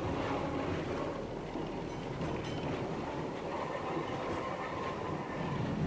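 Vintage Porto street tram running along its track, heard from inside the car: a steady rumble of wheels and running gear, with a few light clicks about two seconds in.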